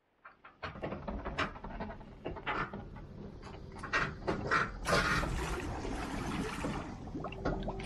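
Boat creaking and knocking on its trailer as the trailer is backed down the ramp into the water, with a stretch of rushing, hissing water noise about midway.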